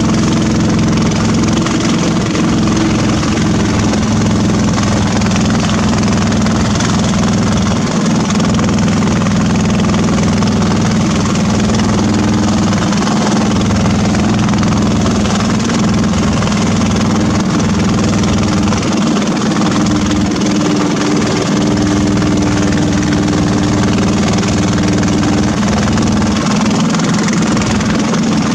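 Boat engine running steadily under way, a constant low pitched drone over a steady rushing noise.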